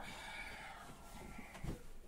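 Fabric rustling as a quilted comforter is pushed off the bed, with a soft dull thump a little under two seconds in as a body shifts on the mattress.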